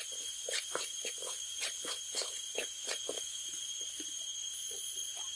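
Metal spatula scraping and knocking against a wok while a thick fried spice paste is stirred, in quick irregular strokes about two to three a second.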